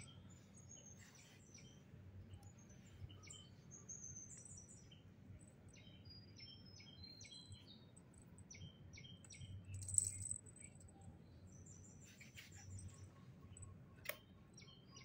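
Faint chirping of small birds: many short, high chirps scattered irregularly, with one louder, higher chirp about ten seconds in. A single sharp click sounds near the end.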